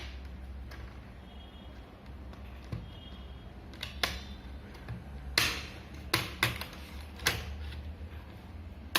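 Plastic snap clips of a laptop's screen bezel clicking loose one after another as the bezel is pried off the lid, about half a dozen sharp clicks spread over several seconds.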